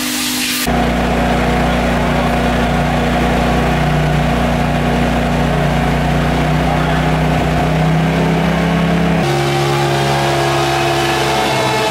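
Engine running at a steady speed. The tone changes abruptly twice, about a second in and about nine seconds in, and the pitch starts rising near the end.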